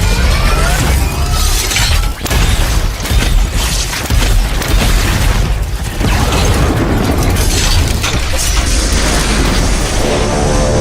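Designed film sound effects of a giant mech robot: dense mechanical clanking and grinding over deep booms, with repeated sharp metallic impacts.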